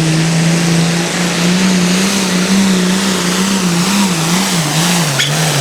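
Hot farm pulling tractor's diesel engine running hard under full load, its pitch wavering up and down as it pulls the sled, then dropping off near the end.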